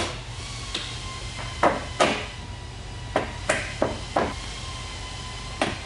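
Plastic side skirt on a Honda Civic EK hatchback being knocked into its retaining clips along the sill: about eight sharp, irregular knocks and snaps.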